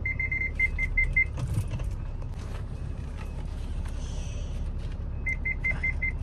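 A car's parking sensors beeping in quick, short beeps of one pitch, about five a second, for the first second and again near the end, warning of an obstacle close by, over a steady low rumble inside the cabin.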